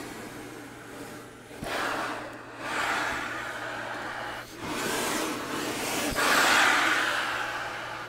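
Air rushing through a Beltuna piano accordion's air valve as the bellows are pushed and pulled with the air button held: a breathy whoosh with no notes, imitating wind. It swells and fades in four waves, the last and loudest about six seconds in, dying away toward the end as the bellows pressure eases.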